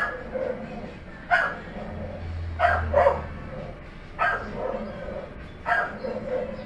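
A dog barking repeatedly: about six short barks, some in quick pairs.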